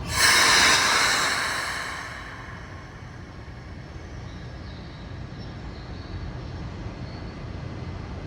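Keikyu 1000-series electric train standing at an underground platform: a loud burst of air hiss at the start that fades over about two seconds, then a steady low rumble with a faint high whine.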